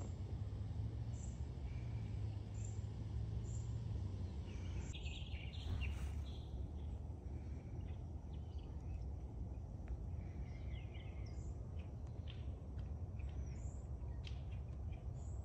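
Outdoor backyard ambience: small birds chirping on and off over a steady low background rumble.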